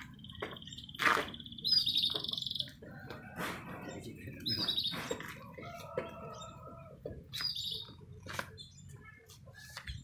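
Caged canaries singing: short high trills and chirps, the loudest in the first few seconds and more around the middle and near the end, among scattered sharp clicks.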